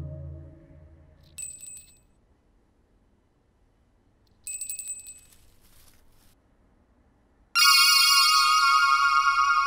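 A low drone fades out, then a small metal bell gives two short, high dings a few seconds apart. Near the end a loud, steady, bright ringing tone with many overtones comes in suddenly and holds.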